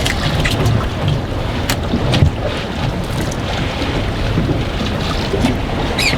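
Strong wind buffeting the microphone on a small boat, a gusty low rumble, with water sloshing against the hull and a few sharp clicks.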